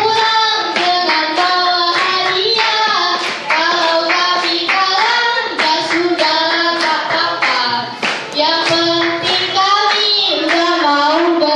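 Young teenagers singing a song together into a microphone, clapping their hands in time.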